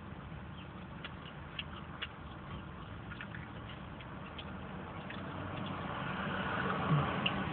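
Small wet clicks and smacks of chewing pizza close to the microphone. From about five seconds in, the running noise of a vehicle grows louder.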